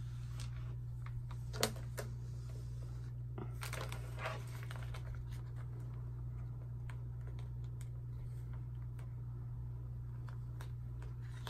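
Light taps, clicks and rustles of a plastic laminating pouch and small paper cards being handled and slid into place on a desk, with one sharper click about one and a half seconds in. A steady low hum runs underneath.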